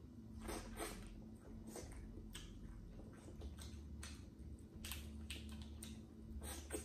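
Boiled crawfish being peeled and eaten by hand: shells cracking and snapping in irregular sharp crackles every half second to a second, with chewing in between.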